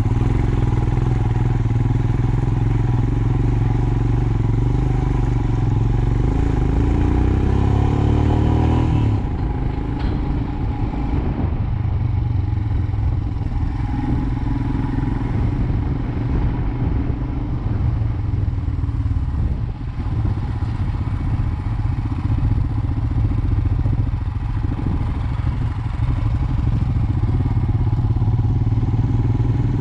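Motorcycle engine running under way on a rough, unpaved mountain road, with clatter and knocks from the bike over the bumps. The engine pitch rises just before a sudden change in the sound about nine seconds in, after which it runs rougher and noisier.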